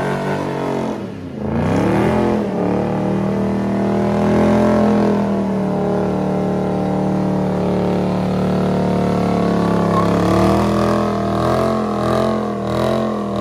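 Dodge Charger doing a burnout, its engine held at high revs with the rear tyres spinning. The revs dip about a second in, then climb and hold steady, and the pitch rises and falls several times near the end.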